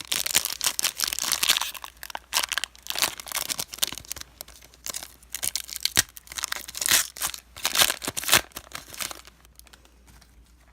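Plastic wrapper of a trading-card pack being torn open and crinkled, in irregular bursts of rustling that die away about nine seconds in.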